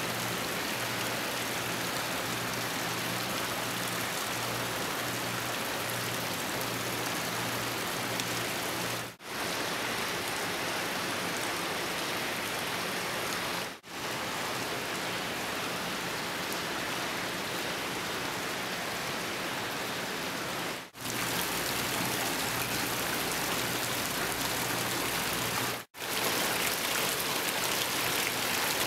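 Water from a tiered stone fountain's swan spouts splashing steadily into its basin, a continuous even rush broken by four brief dropouts.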